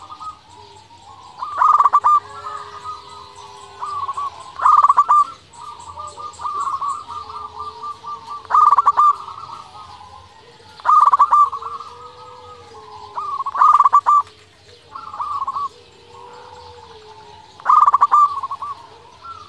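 Zebra dove (perkutut) singing. A loud burst of rapid cooing notes comes about every three seconds, six in all, with softer trilled coos between them.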